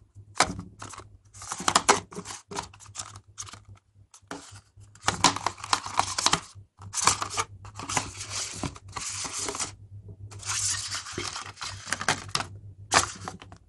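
Cardboard and paper packaging of a phone box being handled: irregular bursts of rustling and scraping as the inner packaging and paper inserts are slid and pulled out.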